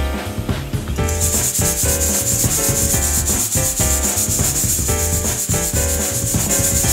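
Green coffee beans rattling and rasping against the wire mesh of a lidded hand-net roaster as it is shaken over the heat, a dense fast rattle that starts about a second in, over background music with a steady bass beat.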